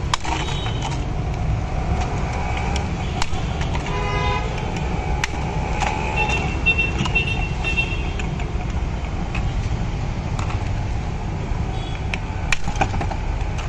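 Ice pick chipping a block of ice held in the hand, a scattering of sharp, irregular clicks, over a steady traffic rumble. Vehicle horns honk briefly about four seconds in and again, higher, around six to eight seconds in.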